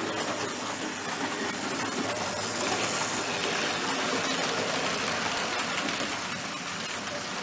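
Märklin HO model train running along the track: a steady running noise of wheels and motor, a little brighter around the middle as the coaches pass close by.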